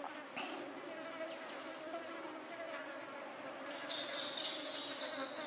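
Forest insects: a steady wavering buzz, a short rapid high trill about a second and a half in, and a shrill high hum starting near the end.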